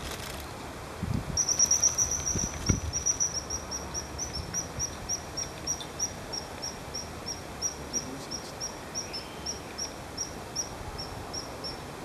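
Common kingfisher giving a long series of short, shrill, high whistled calls. They come quickly at first, then slow to about three a second. A few low thumps come in about one to three seconds in.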